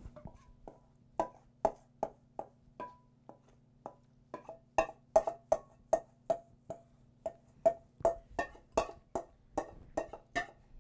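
Wooden spoon knocking and scraping against the inside of a stainless steel mixing bowl as ricotta filling is scraped out, each knock leaving a short metallic ring. About two knocks a second at first, coming faster and louder from about four seconds in.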